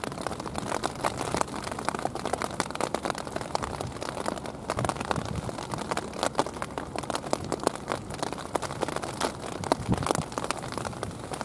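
Steady rain falling, heard as a dense, continuous run of small drop hits.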